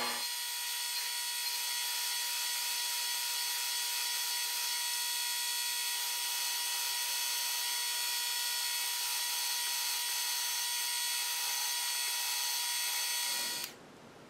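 Small milling machine spindle driving a twist drill into aluminium bar: a steady whine over a high hiss, which cuts off suddenly about thirteen and a half seconds in as the spindle is switched off.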